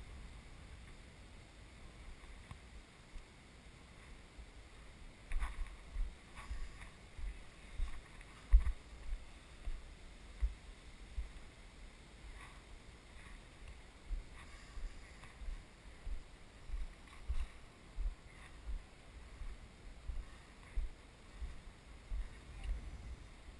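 Footsteps on granite boulders, heard as dull low thuds about one and a half a second from about five seconds in, with light scuffs over them.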